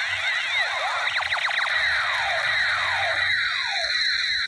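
A battery-powered toy space gun playing its electronic sound effect: many overlapping siren-like tones sweeping up and down, turning into a run of repeated falling zaps in the second half, then cutting off at the end.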